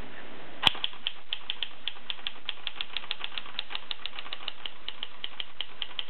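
A 1937 Special Erika 5 portable typewriter being typed on. Its typebars strike the platen in a steady run of clacks, about five a second, with one louder strike under a second in.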